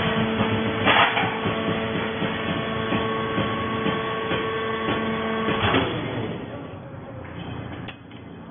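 Fiber baling machine running with a steady mechanical hum and two loud clanks, one about a second in and one just before it dies down at about six seconds.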